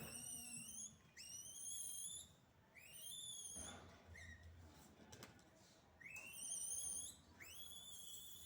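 Monkeys giving high-pitched whistle-like calls, about five or six in a row; each sweeps quickly up and then holds for about a second.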